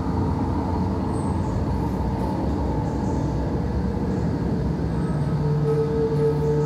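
Video installation soundtrack through gallery speakers: a steady low rumble, with a held droning tone coming in about five seconds in.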